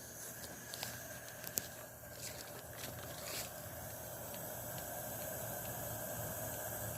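Garden hose being readied: a few sharp clicks of handling in the first few seconds, then a faint steady hiss of running water that slowly grows louder.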